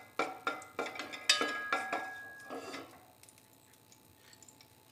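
A wooden spatula stirring, knocking and scraping against a heavy-bottomed metal pot of melted ghee, a quick run of knocks. One knock about a second in rings briefly with a metallic tone, and the knocking stops after about three seconds.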